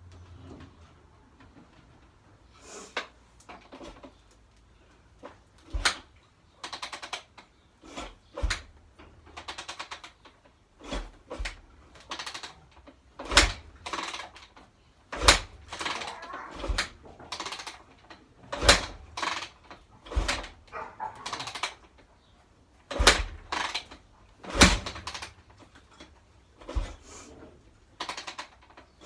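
Yamaha YZ250F dirt bike being kicked over again and again, each kick a thump followed by a brief burst of the engine turning over, with the engine never catching and running.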